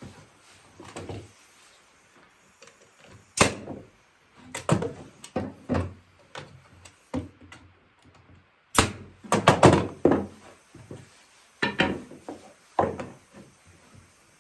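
Sharp knocks of trim nails being driven to fasten oak back slats onto a small rocking chair, about a dozen hits in irregular clusters.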